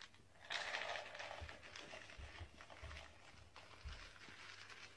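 Faint splash of water flung from a cup onto carpet: a short hissing spatter about half a second in that fades over the next few seconds, with a few soft low thuds.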